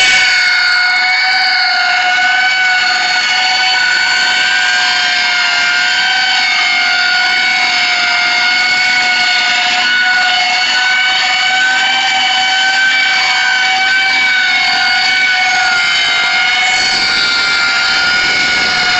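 Homemade coaxial copter's two counter-rotating ducted propellers in flight, a steady high-pitched whine whose pitch wavers slightly as it holds and moves.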